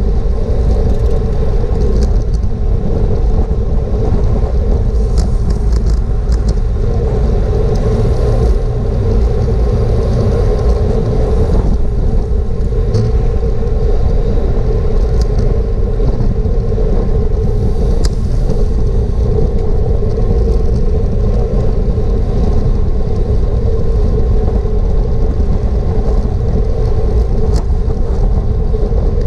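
Wind rushing over a racing cyclist's GoPro microphone at race speed, a steady loud roar with a constant hum underneath and a few faint ticks.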